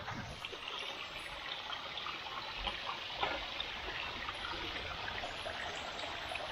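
Small freshwater stream running: a steady trickle and flow of shallow water.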